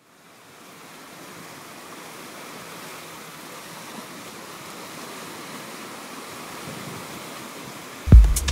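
A steady rush of sea surf fades in over the first second and holds. Near the end, a much louder electronic music track cuts in with heavy bass hits.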